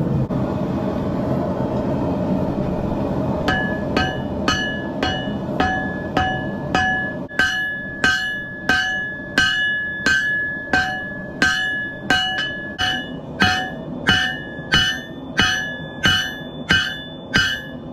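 Hammer blows on a Damascus steel billet on the anvil, drawing it out: after a few seconds of steady rushing noise, an even run of strikes starts, about two a second, each with a short metallic ring.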